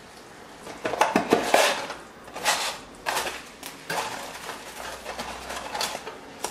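Kitchen handling sounds: a glass electric kettle set back down with a clatter and brief ringing knocks about a second in, then scattered rustling and scraping as a cardboard packet of dried bay leaves is handled.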